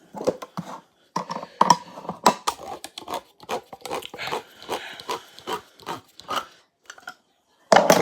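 Cockapoo puppy making a string of short, excited grunts, snuffles and small whines, several a second, with a louder burst near the end.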